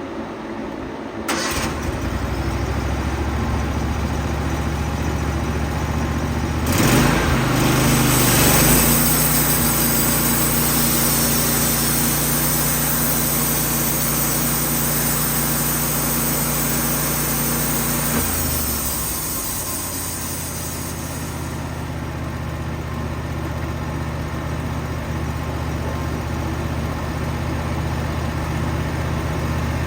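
Wood-Mizer sawmill engine starting about a second in and running, then speeding up near seven seconds while the band saw runs with a strong hiss. It drops back to idle about twenty seconds in.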